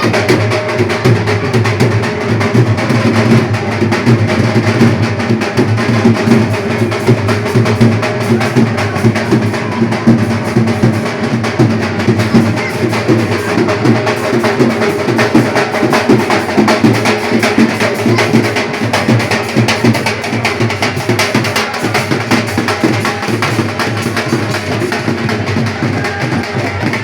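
Loud, fast drumming with music, going on without a break.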